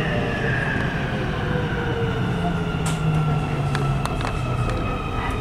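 Nuremberg U-Bahn train running through an underground station, its electric motor whine falling in pitch as it slows, over a steady rumble. A few sharp clicks come from about halfway through.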